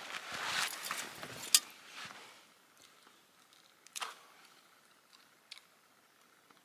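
Rustling and handling noise from a person holding a steel mug, ending in a sharp click about a second and a half in; after that only a few faint clicks.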